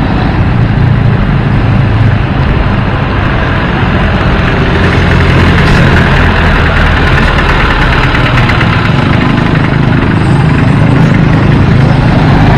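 Motor vehicle engine running steadily under continuous road noise, heard from on board.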